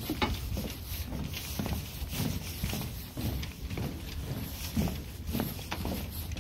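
Walking footsteps, about two a second, over a low steady rumble.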